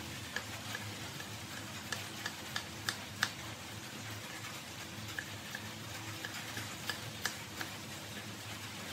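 Kitchen knife cutting peeled breadfruit on a wooden cutting board: irregular sharp taps of the blade on the board, clustered two to three seconds in and again later, over a steady low hum.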